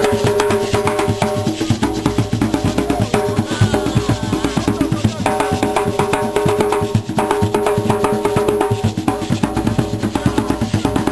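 Group of djembe hand drums playing a fast, dense rhythm together. A long held note sounds over the drumming twice.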